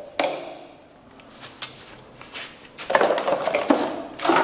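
Hands rummaging through a box of tools and plastic containers, with objects knocking and clattering. There is a sharp knock just after the start, scattered clicks, and a denser burst of clattering and rustling about three seconds in.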